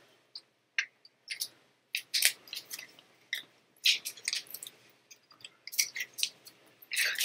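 Plastic snack wrapper crinkling and rustling in irregular short bursts as it is handled and pulled open.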